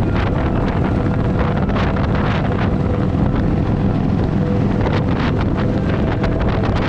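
Harley-Davidson motorcycle running at road speed, its low engine drone steady under heavy wind buffeting on the microphone.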